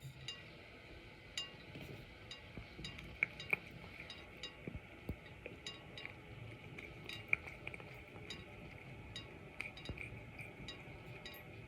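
A cat lapping water: a run of small, irregular wet tongue clicks over a faint steady hiss.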